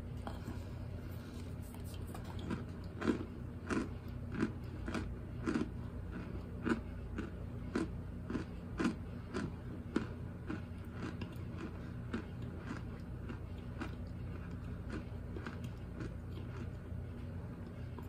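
Chunks of baked Argo cornstarch being crunched and chewed in the mouth: a steady run of crunches, about one every half-second or so, loudest a few seconds in and growing fainter after about ten seconds.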